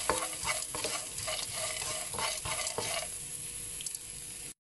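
Chopped onion, peanuts and chana dal sizzling in oil in a nonstick pan while a spatula stirs and scrapes across the pan in quick strokes, about three a second. The stirring eases off after about three seconds, leaving the sizzle, which cuts off suddenly near the end.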